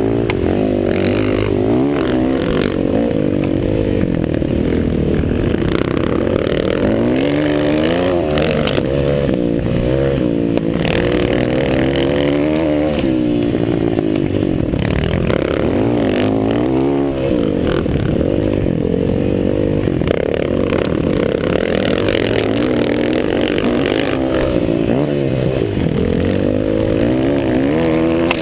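Motocross bike engines revving hard and easing off over and over, several at once, their pitches rising and falling and crossing each other.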